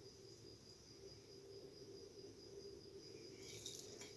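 Near silence: room tone with a faint steady high-pitched whine and a low hum. About three and a half seconds in there is a faint brief rustle as nuts are picked up from a plate.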